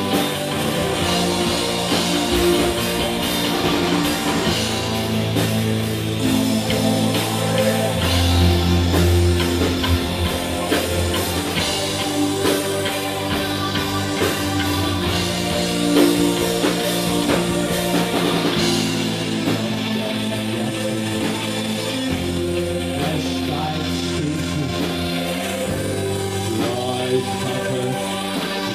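Live rock band playing: electric guitar, keyboard and drum kit, with a bass line that steps to a new note every few seconds.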